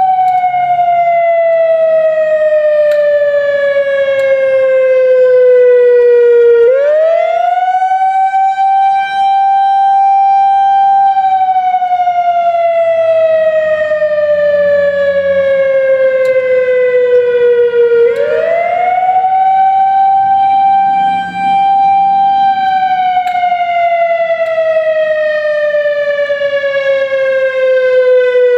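Whelen WS-3000 series analog electronic outdoor warning siren sounding its wail signal. The tone sweeps up quickly, holds a steady high pitch for about four seconds, then slowly falls for about seven seconds, twice over. This wail is the signal the town uses for tornado warnings and siren tests.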